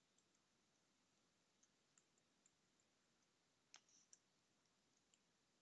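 Faint computer keyboard keystrokes: a few scattered, sharp clicks, two close together just before the middle, over near silence.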